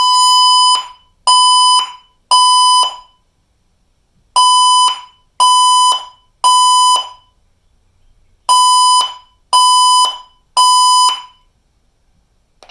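Honeywell APEX Destiny alarm panel's speaker sounding a panic alarm in the temporal-three pattern used for fire alarms: three loud, steady-pitched beeps, a pause, then the next three. The group of three comes three times.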